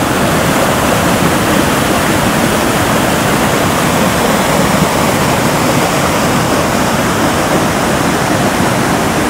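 Vsetínská Bečva river water pouring over a weir into churning whitewater: a loud, steady rush.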